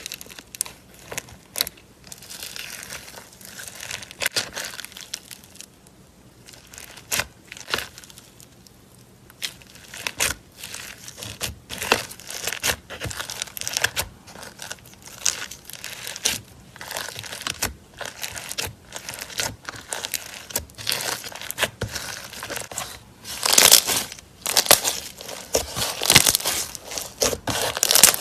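Slime being kneaded and stretched by hand, making irregular sticky clicks and pops, with the busiest, loudest stretch near the end.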